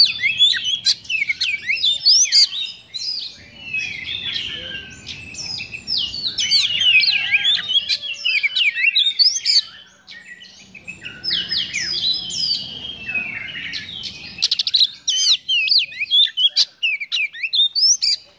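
Oriental magpie-robin singing a continuous, fast song of varied whistles, sweeping chirps and rough harsh notes, with a brief pause about halfway and a quick run of sharp clipped notes later on.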